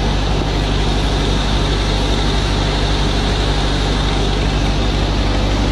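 15 kW generator engine running steadily on biogas, an even, constant drone with no change in speed.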